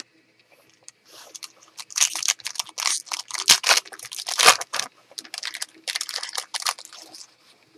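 Foil wrapper of a trading card pack being torn open and crinkled by hand: a run of crackly rustling and tearing that starts about a second in and stops shortly before the end.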